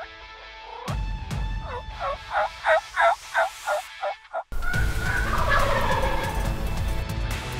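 Wild turkeys gobbling: a fast run of about eight falling notes, then after an abrupt cut another falling call.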